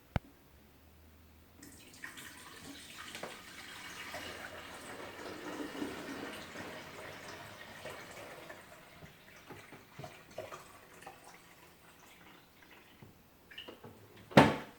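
Water pouring into a drip coffee maker's reservoir, building up and then tapering off after several seconds. A few light clicks follow, then one sharp knock near the end.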